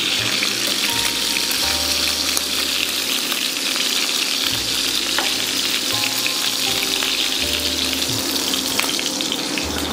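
Seared lamb pieces sizzling steadily in hot fat in a frying pan, with a few light clicks of metal tongs as the pieces are lifted out.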